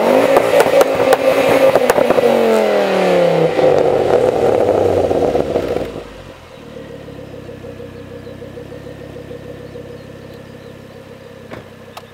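Ford Focus ST's turbocharged 2.5-litre five-cylinder engine through a 3-inch exhaust, held high in the revs for about two seconds, then falling back steadily with crackles. It drops to a steady idle about six seconds in.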